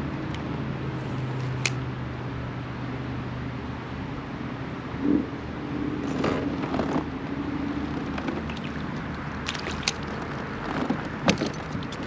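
Steady road traffic noise with passing cars humming, and a few sharp clicks near the end.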